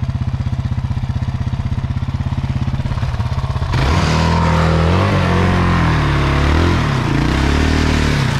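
Enduro dirt bike engine idling steadily, then about four seconds in the throttle opens and the engine note rises and falls several times as it pulls away and rides on.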